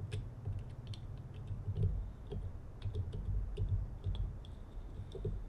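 Irregular small metallic clicks and ticks of a Jeep Wrangler TJ door lock cylinder being worked at to get its cover off, over a low steady hum.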